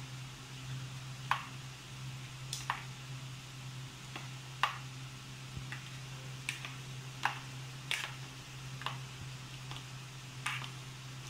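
Plastic utensils stirring and folding fruit salad in a plastic mixing bowl, making light, irregular clicks and taps against the bowl about once a second, over a steady low hum.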